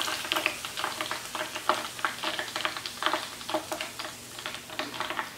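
Hot oil in a small pot sizzling with quick, irregular crackles as breaded chicken skewers are lifted out at the end of deep-frying.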